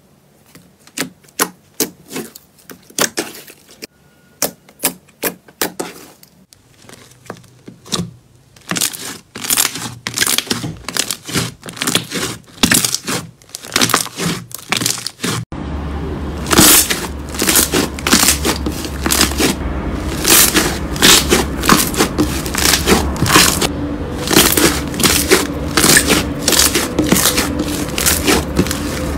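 Hands squeezing and kneading slime: a quick run of sticky clicks, pops and crackles. It gets louder and busier about halfway through, with a low steady hum underneath from then on.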